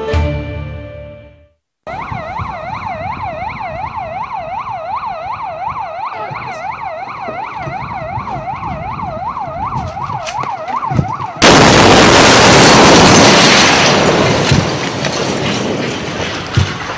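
A short news logo jingle, then an emergency vehicle's siren wailing up and down rapidly, about three times a second. About eleven seconds in, a vehicle bomb explodes: a sudden, very loud blast that cuts off the siren and fades over several seconds.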